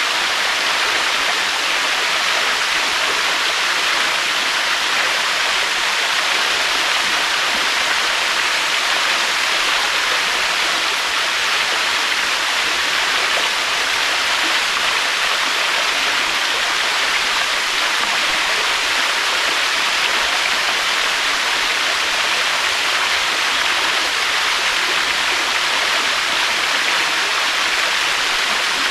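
Waterfall: falling water rushing in a steady, unbroken hiss, with no rise and fall.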